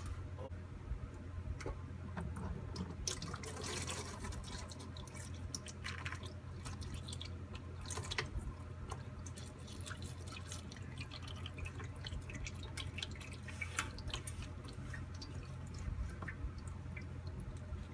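Automatic transmission fluid dripping and trickling from a Turbo 400 transmission pan as it is worked loose from its sticking gasket, with scattered small clicks and knocks over a steady low hum.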